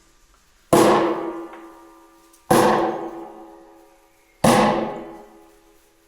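Loud hammer blows on a centre punch against the steel hoop of a whisky barrel: three strikes about two seconds apart, the hoop ringing and fading after each.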